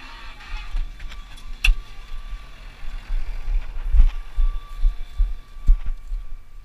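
Irregular low rumbling and thumping from wind and movement on a head-worn camera's microphone, with three sharp knocks spread through, as the wearer climbs down from a tractor and walks over grass.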